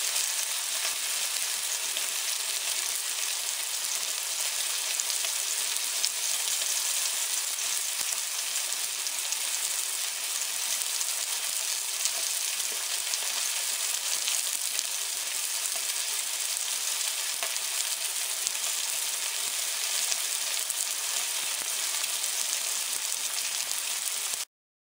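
Chuck roast searing in hot oil in a Dutch oven: a steady sizzle with faint crackles, stopping abruptly near the end.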